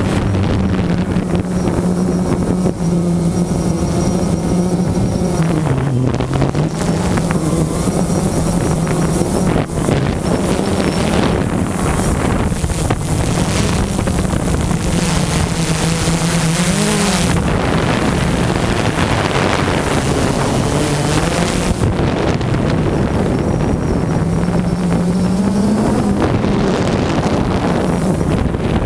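Electric motors and propellers of a small camera drone whining steadily in flight, the pitch dipping and rising as the throttle changes, with wind buffeting the microphone.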